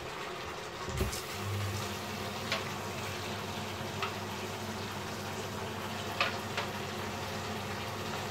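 Kitchen tap water running steadily into a small stainless-steel saucepan, filling it, starting about a second in. A few faint clicks sound over it.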